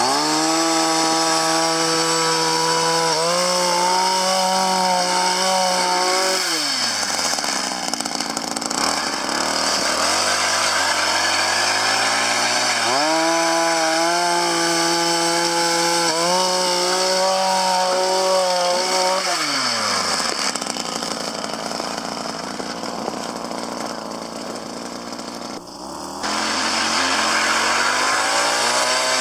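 Small engine of a powered ice auger drilling a hole through lake ice: it runs at full speed for several seconds, drops back to idle, runs at full speed again, and returns to idle. After a brief dip it picks up speed again near the end.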